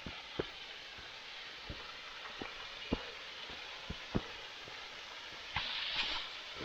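A small rocky waterfall about 40 feet high, running at a light trickle: a steady, even rush of falling water, with a few short sharp taps and a brief louder swell of hiss about five and a half seconds in.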